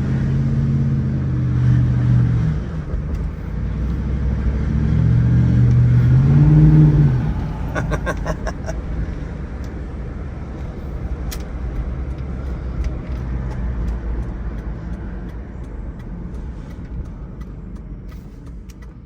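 V8 car engine pulling hard twice, its note rising and falling. It then settles to a low steady rumble that slowly fades, with a few short clicks about eight seconds in.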